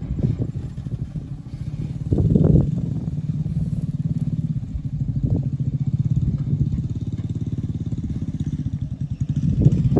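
A vehicle engine running at low revs with a steady low pulse. It swells briefly about two seconds in and again near the end.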